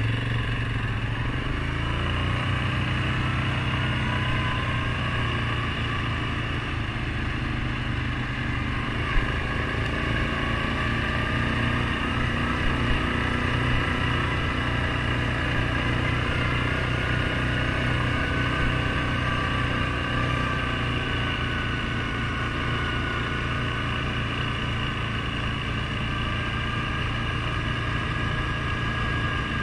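Suzuki King Quad 750 ATV's single-cylinder engine running steadily under way on a dirt road, with a whine that drifts slightly in pitch. One sharp knock about nine seconds in.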